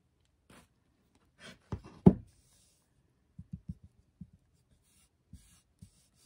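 Hands handling a paper napkin on a wooden board: light rustling and scratching of the paper, a sharp knock about two seconds in, then a few soft taps on the tabletop.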